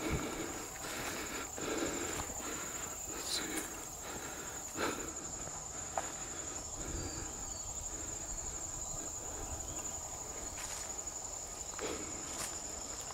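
Footsteps crunching through dry leaves and brush, a step roughly every half second for the first few seconds and again near the end, over a steady high-pitched trill of insects in the woods.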